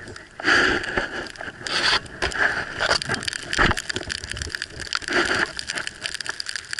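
Many small, rapid ticks of sleet pellets striking the camera, with three louder rushing swishes about half a second in, near two seconds, and about five seconds in.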